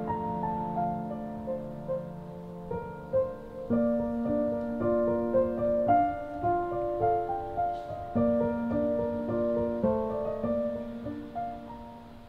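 Background piano music, fading out near the end.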